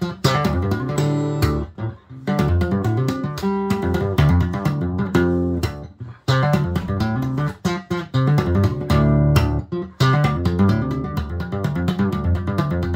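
Steel-string acoustic guitar played solo fingerstyle with percussive technique: plucked bass and melody notes mixed with sharp slaps and taps of the hand on the strings and body, with a few brief rhythmic stops.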